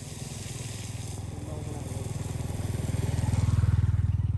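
A small engine running with a low, fast chugging, growing steadily louder until near the end and then beginning to ease off.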